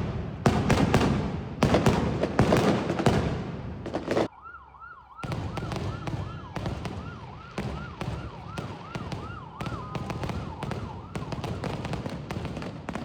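Fireworks going off in a fast run of loud bangs. About four seconds in, a siren starts wailing up and down about twice a second while lighter firework cracks keep going; the siren fades out near the end.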